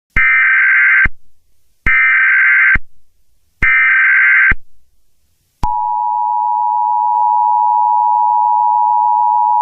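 Emergency Alert System tones: three one-second bursts of the SAME digital data header, evenly spaced, then about halfway in the steady two-tone EAS attention signal begins and holds.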